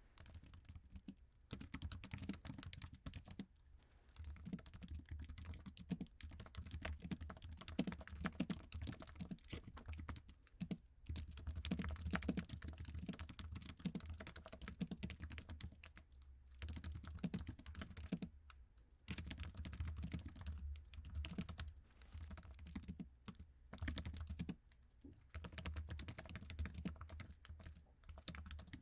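Continuous fast typing on an Apple iMac's standard keyboard: dense runs of key clicks broken by several short pauses.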